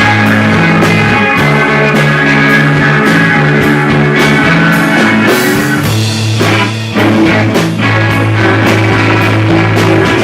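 A live dream-pop and math-rock band playing: guitar and held bass notes over a steady drum beat. There is a short break in the bass about six to seven seconds in.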